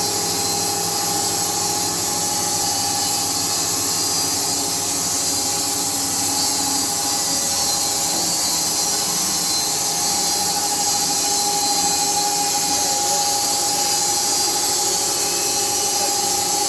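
SMFA automatic sawmill cutting a 2-inch board lengthwise from a still-wet log, a steady high hiss with a steady whine held under it throughout.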